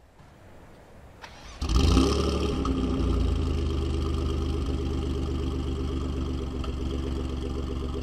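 Alfa Romeo Giulia Quadrifoglio's 2.9-litre twin-turbo V6, fitted with a decat custom exhaust, starting up. The revs flare briefly, then settle into a steady idle.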